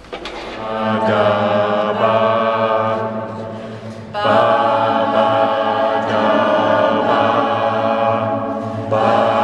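A small group of amateur voices singing long held notes together inside a tall concrete resonating column, so the chords ring and swell. A new, louder chord comes in about four seconds in and another near the end.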